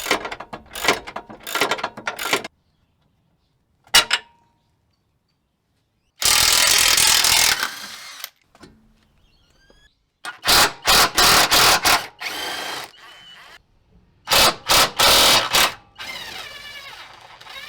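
Bursts of power-tool noise on the suspension bolts: several short bursts in quick runs and one longer burst, with a sharp metallic click between. The sound breaks off abruptly into dead silence several times.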